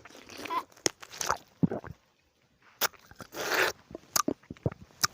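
Close-miked eating of nimbu (lemon): biting and chewing, a string of sharp crunches and short wet bursts, with a brief pause about two seconds in.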